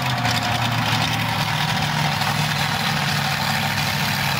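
Monster truck engines idling steadily.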